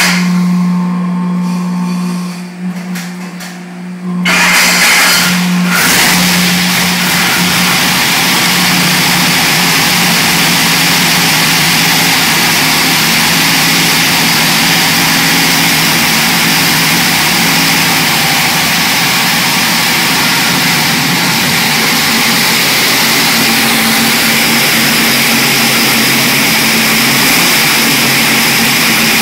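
Chevrolet V8 on an engine dyno starting up about four seconds in, then running steadily through its open headers. Before it fires, a steady hum.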